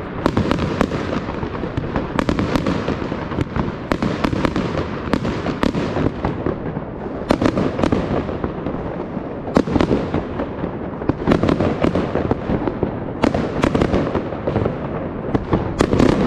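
Many fireworks going off at once: a continuous barrage of sharp bangs over constant crackling, the loudest reports coming every second or two.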